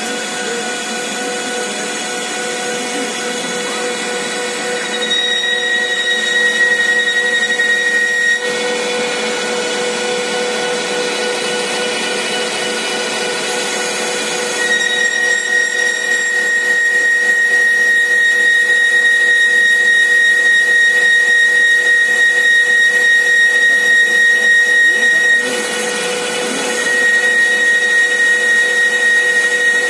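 CK6150 CNC lathe running, its spindle turning a metal workpiece while a boring bar cuts the inner bore. A steady machine hum runs under a high, steady cutting whine that comes in with each pass, about five seconds in, at about fifteen seconds and again near the end, and breaks off when the tool leaves the cut.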